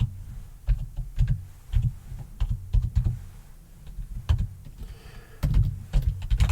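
Typing on a computer keyboard: irregular bursts of keystrokes, each with a dull low thud. The typing thins out for a moment past the middle, then speeds up into a fast run near the end.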